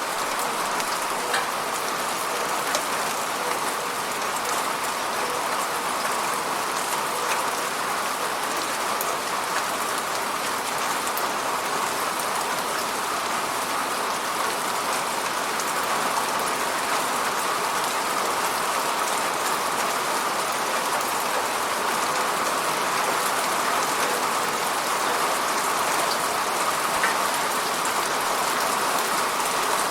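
Steady rain falling and pattering on a window pane, with a scatter of single drops ticking sharply against it.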